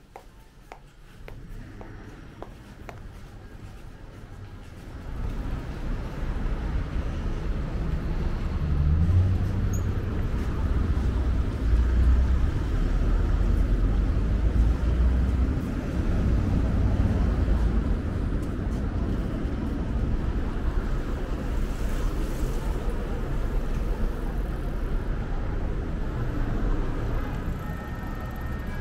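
City street traffic: after a few quiet seconds, a steady low rumble of passing road vehicles sets in about five seconds in.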